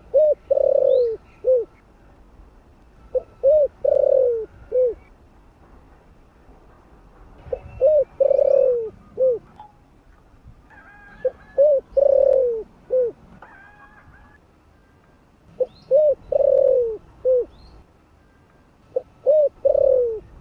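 Spotted dove calling: six repeated cooing phrases, about one every four seconds, each two quick coos, a longer falling coo and a short closing coo. Faint chirps of other small birds are heard between phrases.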